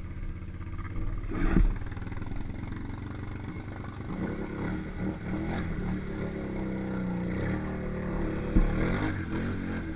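ATV engines running, one revving up and down as a quad is driven through deep muddy water. Two sharp thumps cut through, about a second and a half in and near the end.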